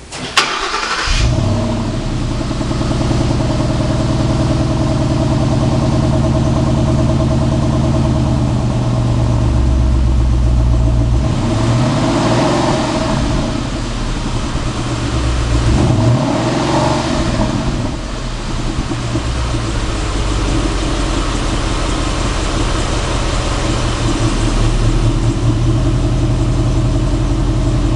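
2011 Ford Mustang GT's 5.0-litre V8 on its stock exhaust starting up and settling into a steady idle. It is revved twice to about 3000 rpm near the middle, then returns to idle.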